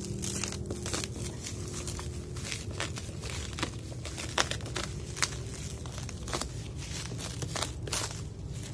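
Bubble wrap crinkling and crackling as it is cut and peeled off a cardboard box, with many short crackles and two louder snaps a little past the middle.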